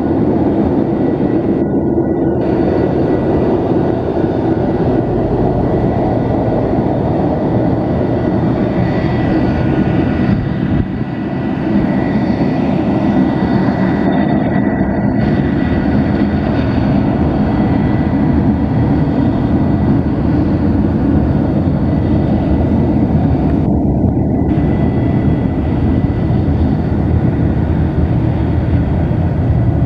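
Boeing 737-200's Pratt & Whitney JT8D turbofan engines running at taxi power as the jet rolls along the taxiway: a loud, steady low rumble with a thin high whine running through it.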